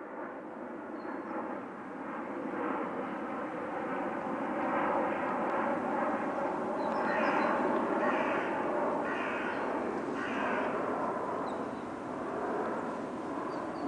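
Steady drone of a distant engine that swells and eases off, with four short calls about a second apart in the middle.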